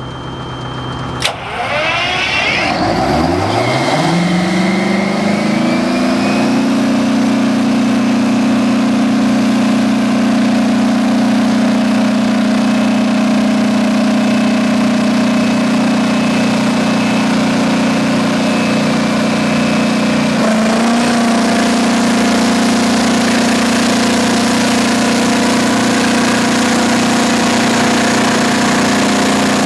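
Detroit Diesel engine of an 800 kW Spectrum diesel generator set starting up: a sharp click about a second in, then the engine fires and speeds up over a few seconds to a steady run. About twenty seconds in its note shifts slightly, and it runs on steadily.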